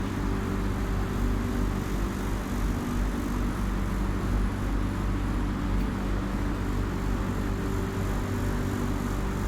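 Interior of a light-rail (LRT) train running between stations: a steady low rumble with a hum of several steady tones.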